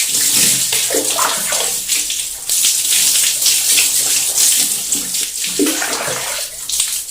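Water running and splashing steadily as hair is rinsed during a hair wash.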